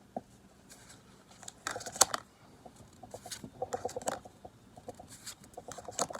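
Foil Pokémon card booster pack crinkling and tearing as it is opened, in bursts of crackling with one sharp tear near 2 seconds in.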